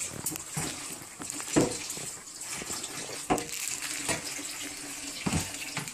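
Kitchen tap running into a sink while something is rinsed under it, with three knocks along the way.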